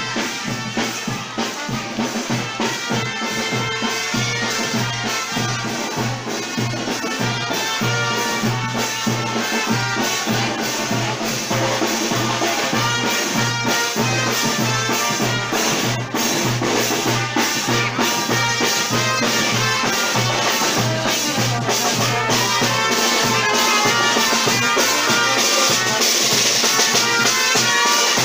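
Brass band playing procession music: trumpets and trombones over a steady drumbeat, growing louder as the band comes closer.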